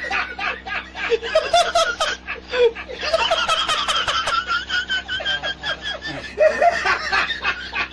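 Laughter in rapid repeated bursts, with a run of quick high-pitched laugh pulses in the middle.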